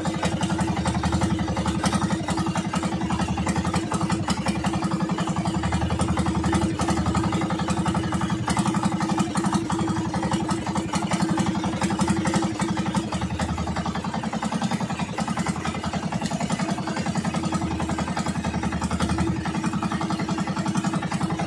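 Outrigger fishing boat's engine running steadily with an even, fast firing rhythm while the boat is under way.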